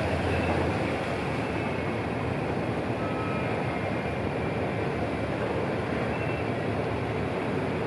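Austal 39.9 m high-speed catamaran's MTU diesel engines running steadily under way at low speed while berthing, with the churn of its wash at the stern. The level eases slightly about a second in.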